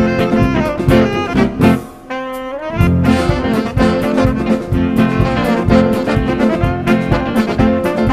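Live band playing up-tempo jazz with a horn section, electric bass and drums. About two seconds in the band drops out briefly after a crash, a rising note leads back, and the full band comes back in.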